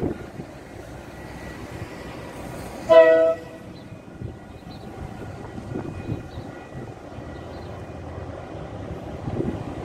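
A KiwiRail locomotive's horn sounding one short multi-note blast about three seconds in, from a train approaching down the line, over a steady background rumble.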